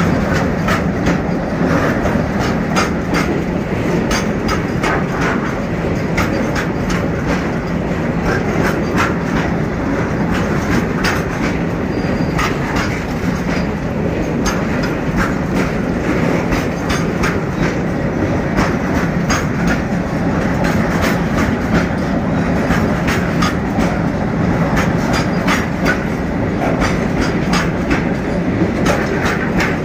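Freight train of covered goods wagons running past close by: loud, steady noise of steel wheels on the rails, with a constant clatter of sharp clicks and knocks from the wheels and bogies.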